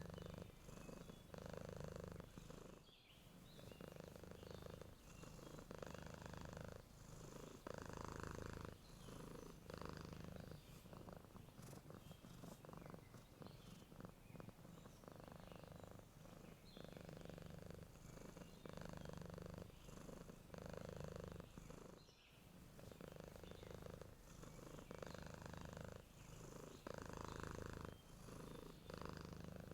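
A sleeping domestic cat purring softly and steadily, the purr swelling and fading with each breath in and out.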